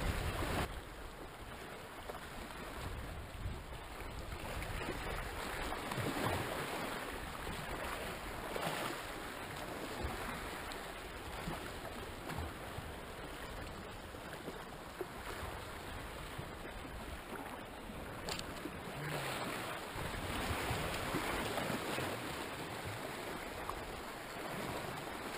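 Small sea waves washing against rocks: a steady rushing noise that swells and eases.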